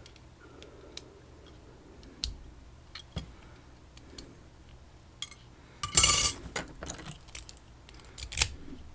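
Small metal clicks and taps of lock parts and tools being handled, with a loud brief rattle of keys and metal about six seconds in and a smaller one near the end.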